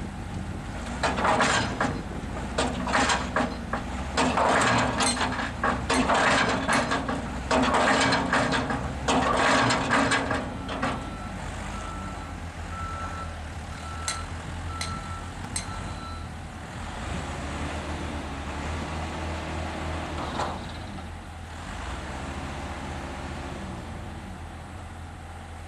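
Heavy diesel construction machinery running steadily at a low pitch. In the first ten seconds come loud, irregular rushes of noise. About eleven seconds in, a vehicle's reversing alarm sounds a run of evenly spaced beeps for about five seconds.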